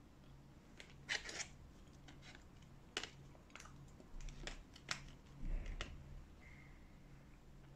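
Close-miked clicks, taps and light crinkles of fast-food packaging being handled as a chicken nugget is picked out of its cardboard box and dipped in a small plastic sauce cup. There are about half a dozen sharp clicks and a couple of soft low thumps, over a faint steady hum.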